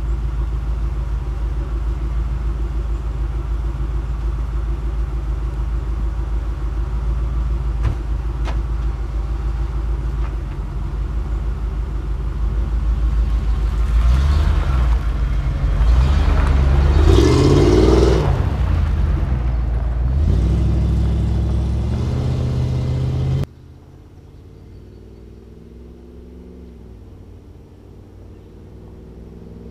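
Glasspack exhaust of a 1996 Ford F-250 pickup idling close by with a steady rumble, then revving and pulling away about halfway through, rising and falling in pitch. Near the end the sound drops suddenly to the same truck heard faintly far off.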